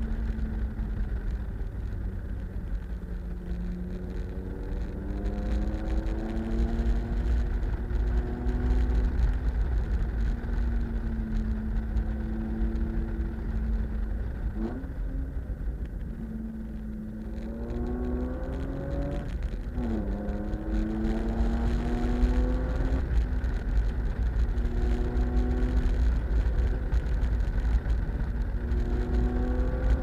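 BMW E36 328i's 2.8-litre straight-six engine pulling hard through the gears, its note climbing and dropping over and over, with two sharp throttle blips near the middle. A heavy low rumble of road and wind noise lies underneath.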